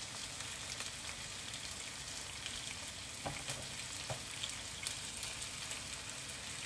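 Sliced onion, tomato and green pepper frying in oil in a pan: a steady, gentle sizzle with small crackles, and a few louder ticks about three, four and five seconds in.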